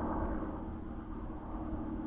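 Model aircraft motor spinning a 10x7 propeller at steady speed, a constant buzzing drone with a steady pitch.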